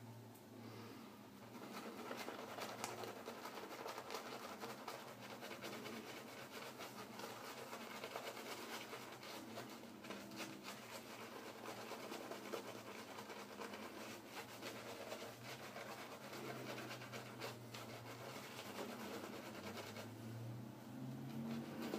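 Shaving brush scrubbing lather over a stubbled face and neck for the second pass of a wet shave: a steady, rapid scratchy rubbing of bristles on skin that starts about two seconds in and eases off near the end.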